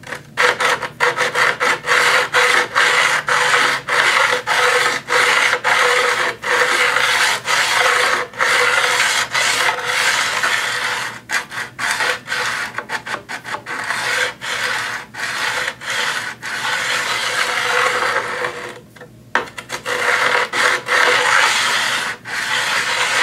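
Diamond hone rasping back and forth along the steel blade of a guillotine paper cutter in quick strokes, about two a second, with a steady ringing tone underneath; the strokes stop briefly near the end, then resume.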